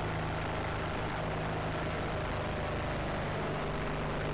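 Rotax 582 two-stroke engine and propeller of a Chinook Plus 2 ultralight running at steady cruise power in flight, heard from the cockpit as an even drone.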